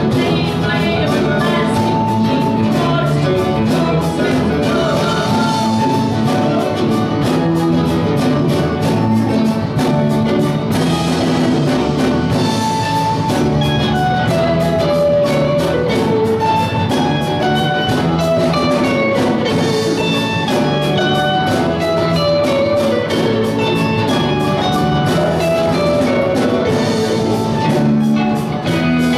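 Live rock band playing a jam: electric guitars carrying a melodic lead line over bass and a steady drum kit beat.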